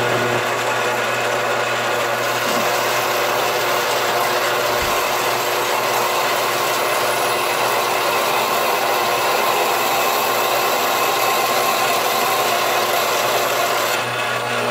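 Band saw running and its blade cutting through a brass bar with a steady, loud rasp. The sound changes slightly near the end as the cut breaks through.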